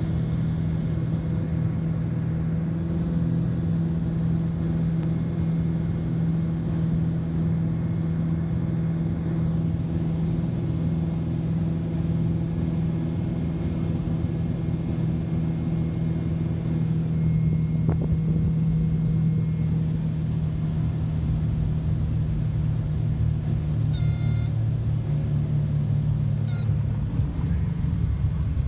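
Steady cabin drone of the Cessna 340's twin turbocharged six-cylinder piston engines and propellers on landing approach, a loud low hum. The engine note changes near the end.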